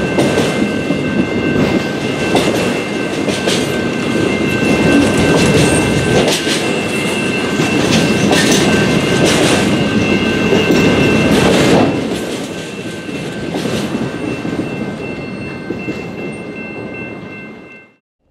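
Freight train of autorack cars rolling past, wheels clacking over rail joints, with a steady high ringing tone held over the rumble. It grows somewhat quieter about twelve seconds in and fades out near the end.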